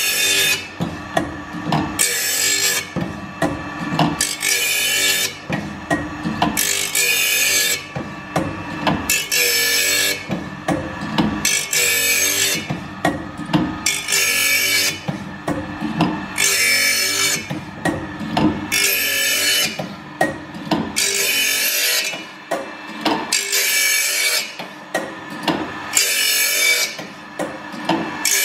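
Diamond grinding wheel of an OSW-5M saw-sharpening machine grinding the teeth of a carbide-tipped circular saw blade one after another. There is a harsh burst of grinding about every two and a half seconds as each tooth meets the wheel, with the motor humming steadily between. The cut is set deep so that the broken-off carbide teeth are touched at all.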